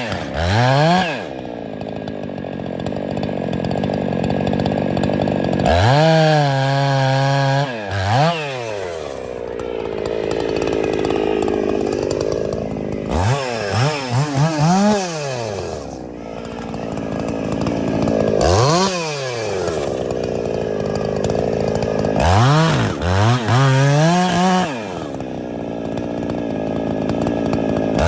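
Two-stroke chainsaw cutting into a tree trunk: the engine revs up and falls away again several times, with stretches of steady cutting under load in between.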